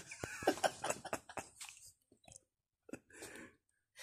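Crinkly rustling and a quick run of clicks close to the microphone, densest in the first two seconds, then a few faint short hissy sounds.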